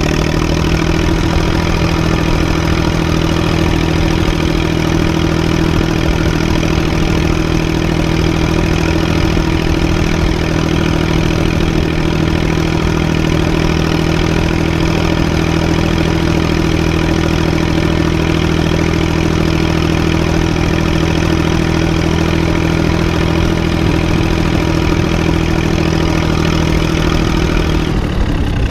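Fordson Dexta tractor's three-cylinder diesel engine running under load at a steady pitch, heard up close from the driver's seat. The steady note breaks up and changes near the end.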